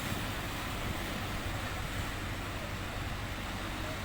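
Steady seaside rumble of wind on the microphone and surf, with a constant low hum underneath.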